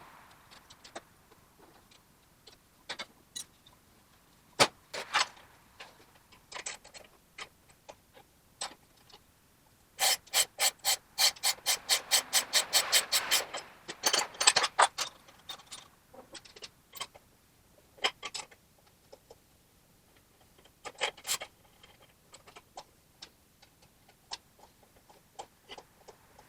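Scattered metal clinks of hand tools working, then a run of rapid, even clicks, about seven a second for some three seconds midway, like a socket ratchet turning the nuts that bolt the leaf spring and lowering block to the differential.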